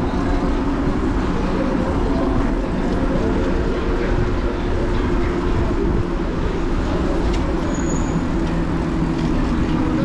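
Steady wind and road rumble on the camera of a moving electric scooter riding with a group of cyclists.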